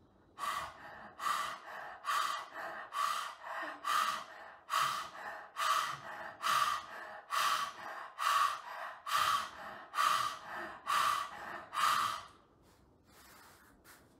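Simha Kriya (lion breath): rapid, audible panting in and out through a wide-open mouth with the tongue stuck out, a louder breath about once a second. The panting stops about twelve seconds in, followed by a few softer breaths.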